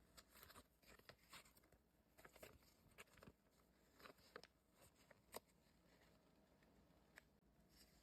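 Faint rustling and small clicks of packaging and box contents being handled, scattered and irregular, close to near silence.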